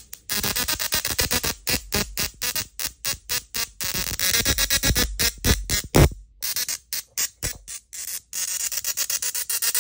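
Small musical Tesla coil playing a tune through its spark discharge: a buzzing, synth-like melody of many short, rapid notes with brief gaps between them.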